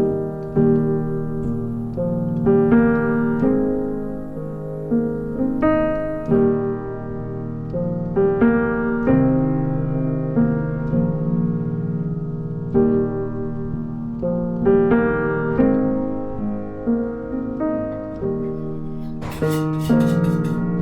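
Soft background piano music, slow notes and chords; near the end a run of sharp clicks or taps sounds over it.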